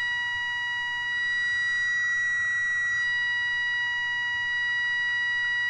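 Steady high-pitched test tone from a signal generator set to 600, played through the Grundig Trento valve radio's speaker over a light hiss, as the medium-wave oscillator coil is tuned to bring the 600 in on the dial. The tone gets slightly louder about a second in.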